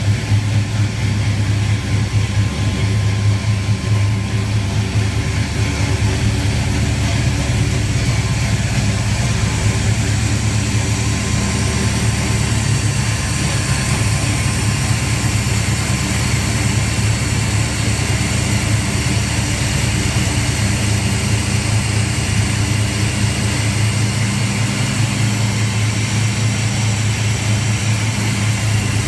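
1957 Chevrolet truck's engine, fitted with FiTech throttle-body fuel injection, idling steadily on a run test.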